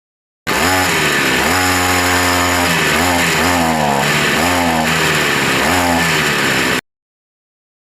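Two-stroke chainsaw engine revved up and let back down about five times in a row, then cut off abruptly. The saw's clutch drum bearing won't spin.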